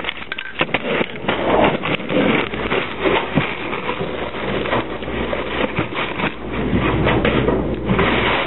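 Handling noise and knocks as the camera is moved and set down on a table, then scrapes, knocks and rustling of a plastic food bag being handled on the tabletop, with the rustling densest near the end.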